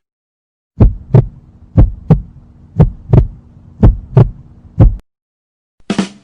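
Heartbeat sound effect: five slow double thumps, lub-dub, about one a second, over a low steady hum, stopping abruptly about five seconds in. A brief sharp double click follows near the end.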